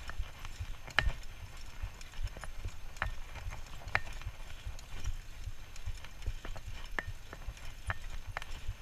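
Mountain bike rolling over bumpy grass: irregular sharp metallic clicks and rattles, about one a second, over a steady low rumble.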